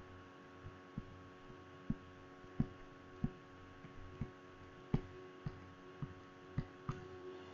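A stylus tapping on a tablet screen while handwriting, with about a dozen light, short taps at irregular intervals over a low, steady electrical hum.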